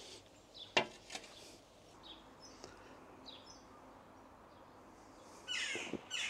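Garden birds chirping, with a short run of rapid repeated song notes near the end. A single sharp click sounds about a second in.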